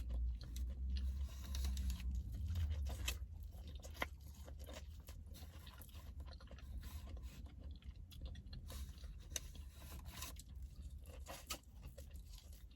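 Close-up eating sounds: irregular crisp crunches and chewing, louder in the first three seconds, over a steady low hum.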